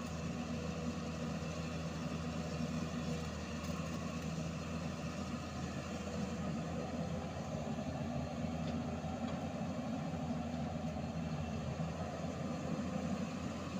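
Steady running of heavy diesel engines from a Hyundai 220LC-7 crawler excavator and a tipper truck while the excavator swings a bucket of earth over the truck to load it.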